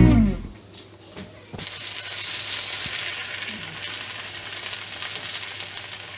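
Salmon pieces frying in hot oil in a pan: a steady sizzle that starts about one and a half seconds in.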